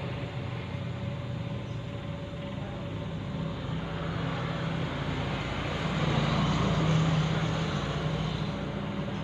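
Air hissing through a hose chuck into a car tyre being inflated, over a steady low mechanical drone that grows louder about six to seven seconds in.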